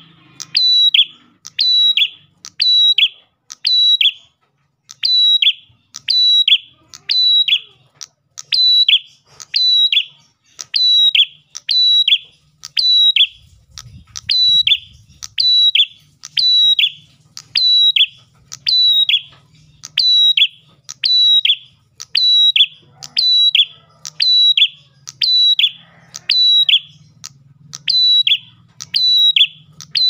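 Ashy tailorbird singing in full song: a loud, sharp high note with a quick downward flick, repeated about once a second in a long, even series.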